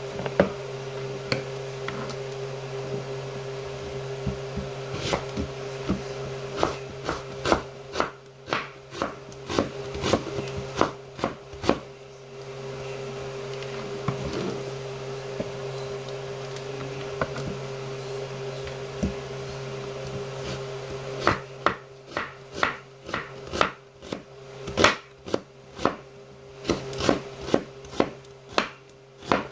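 Kitchen knife chopping an onion on a wooden cutting board: two runs of sharp knocks, about two a second, one starting about five seconds in and one about two-thirds of the way through. A steady low hum runs under it.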